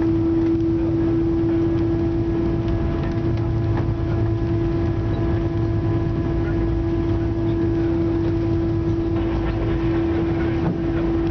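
Airbus A320 on its landing rollout, heard inside the cabin: a steady low rumble under a steady hum held on one pitch, with the ground spoilers raised.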